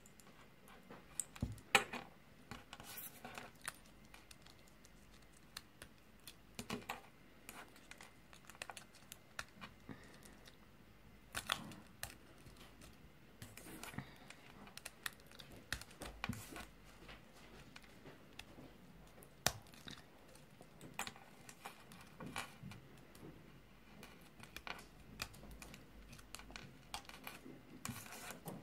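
Small plastic toy parts from a Kinder Surprise egg handled and snapped together: scattered light clicks and taps mixed with brief crinkly rustles.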